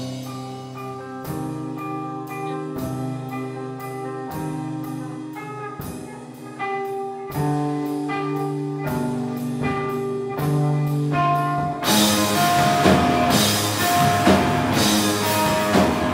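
Live band of electric guitar and drum kit: for the first part, ringing chords struck about every second and a half, then about twelve seconds in the whole band crashes in loud and dense.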